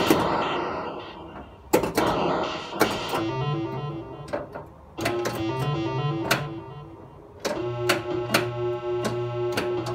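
Bally Mystic pinball machine in play. Its electronic sound effects give out hopping and repeated tones, and sharp mechanical clacks from the ball striking switches and the flippers firing cut through them.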